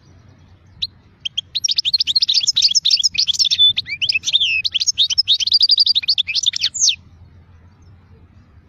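European goldfinch singing: a single call note, then a fast, tumbling song of twittering chirps and trills lasting about five and a half seconds before stopping abruptly.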